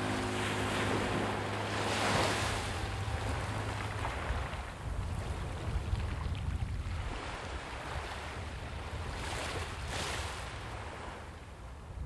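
Small waves breaking and washing up a sand-and-pebble beach. The surf swells and falls back every few seconds, loudest about two seconds in and again near ten seconds.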